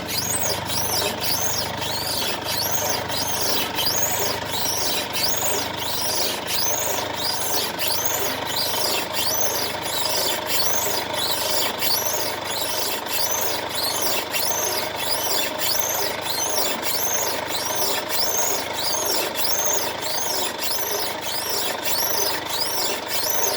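Mercedes-Benz C220d W205 front suspension giving a high, chirping squeak, like a sparrow, repeating about twice a second as the steering wheel is worked with the car standing still, over a steady hum. The squeak is the car's known fault: it is traced to a torn rubber bushing in the driver-side lower control arm.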